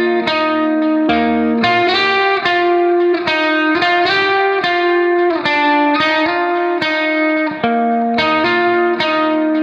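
Background music: a guitar melody played through effects, a steady run of sustained notes that change pitch every half second or so.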